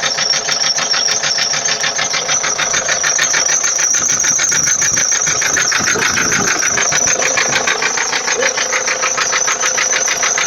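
Ford Transit 2.4 TDi four-cylinder diesel engine running with a steady, fast, evenly spaced knock, a knock whose cause the owner does not know.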